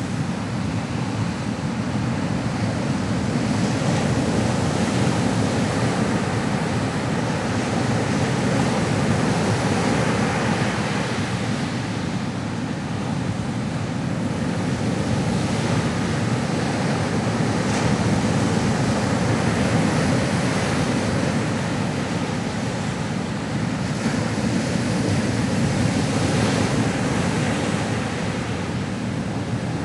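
Ocean surf: waves breaking and washing continuously, a steady rush that swells and eases every several seconds.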